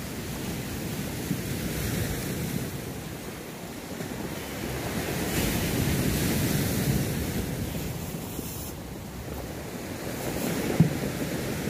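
Sea waves washing onto the shore, the rushing swelling and fading every few seconds, with wind buffeting the microphone. A single short click near the end.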